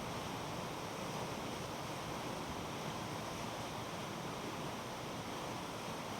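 Rushing water: a steady, even rush that does not change.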